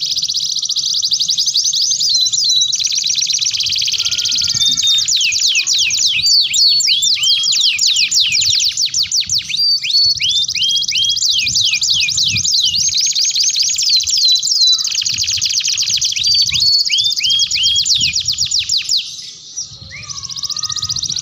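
Domestic canary singing a long, unbroken song of rapid high trills mixed with runs of quick falling whistled notes, with a brief drop near the end before it picks up again.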